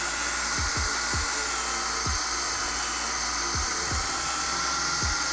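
Handheld power drill running steadily at speed, boring a mounting hole through a motorcycle saddlebag lid, with a constant high whine. Background music with a beat plays underneath.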